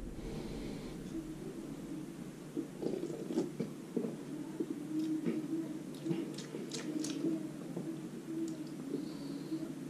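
Faint mouth sounds of someone tasting a drink from an aluminium can: a sip and swallow, then scattered small lip smacks and clicks.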